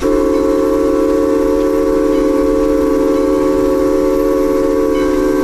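Steam locomotive whistle blowing one long, steady, loud blast, several chime tones sounding together, heard from inside the cab.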